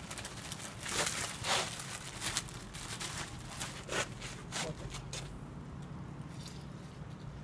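Dry cement being scooped and shaken out of a plastic bag into a plastic basin: a handful of short scraping, rustling sounds, the loudest about a second and a half in, over a low steady hum.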